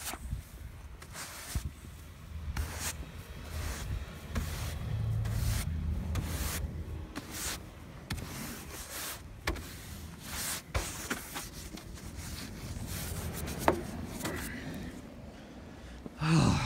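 Snow being swept and scraped off a vehicle in irregular swishing strokes, with a low rumble from the phone being handled and a louder burst near the end.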